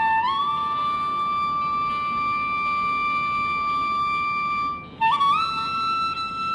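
Background music: a melody of long held notes that slide into pitch, with a new note beginning about five seconds in.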